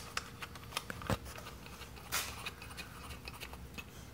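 Hands handling a motorcycle's plastic side cover and its metal bracket while fitting them back into place: scattered light clicks and scrapes, with a sharper knock about a second in and a brief scrape about two seconds in.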